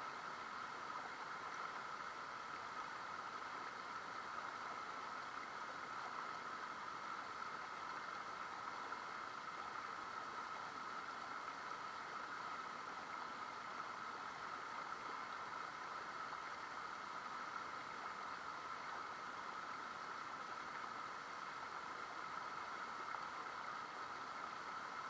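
River water flowing, an even, unbroken hiss that does not change.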